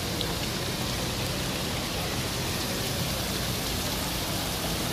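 Fountain water falling down a tiered wall and splashing into a stone basin: a steady, even rush of water.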